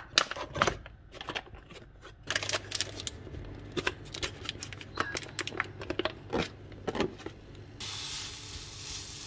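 Plastic packet crinkling as diced lardons are tipped into a non-stick frying pan, then a wooden spoon clicking and scraping as they are stirred. Near the end the lardons begin to sizzle as the pan heats.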